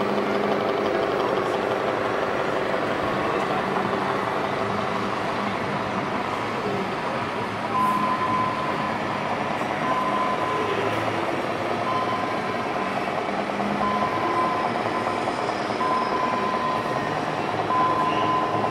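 Radio-controlled model Scania truck's sound module playing a steady diesel engine sound over the murmur of an exhibition hall crowd. From about eight seconds in, a reversing warning beep sounds once every two seconds.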